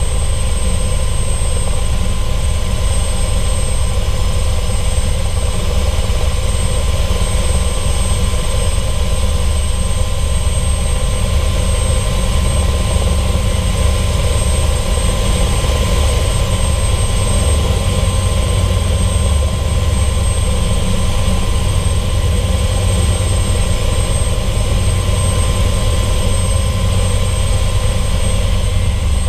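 ES101 Raven helicopter's engine and rotor running steadily in flight, heard from inside the cockpit as it comes down to land: a loud, even low throb with constant high-pitched whines over it.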